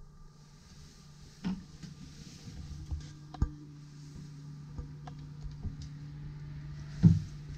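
Scattered light clicks and knocks from someone moving through a small cabin and doorway, over a steady low hum; a heavier thump comes near the end.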